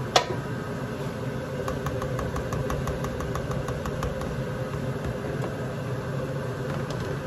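A steady mechanical hum, with one sharp click just after the start and a short run of faint quick ticks, about five a second, a couple of seconds in.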